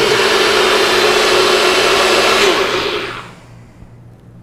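NutriBullet blender motor running at full speed, blending a green smoothie, then winding down and stopping about three seconds in.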